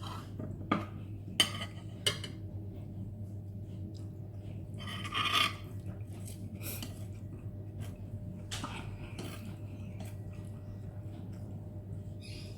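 Utensils clinking against a bowl of spicy Korean instant noodles: three sharp clinks in the first two seconds, then the scattered noises of eating, with a louder burst about five seconds in, over a steady low hum.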